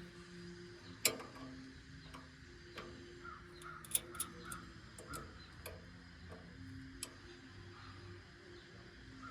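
Irregular sharp metal clicks and taps of a wrench on the jam nuts of a firewood processor's saw chain tensioner, the loudest about a second in and a cluster around four seconds in.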